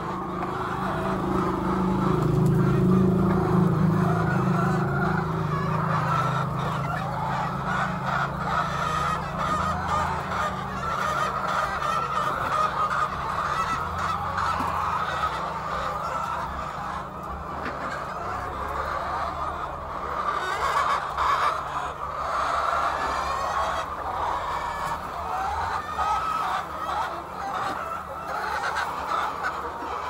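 A flock of white laying hens clucking and calling over one another without a break. The flock is loudest and lowest-pitched about two to five seconds in.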